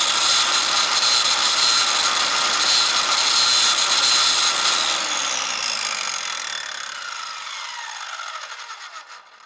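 Circular saw running at full speed with a loud high whine, then switched off about five seconds in: the blade winds down, its whine falling and fading until it stops near the end.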